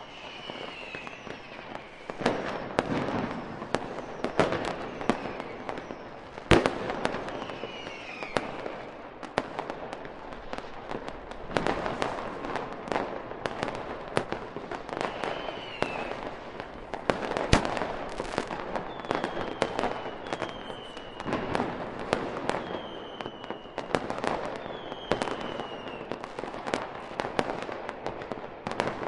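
Fireworks display: a dense run of bangs and crackling bursts, the sharpest about six and a half seconds in, with short high falling whistles now and then.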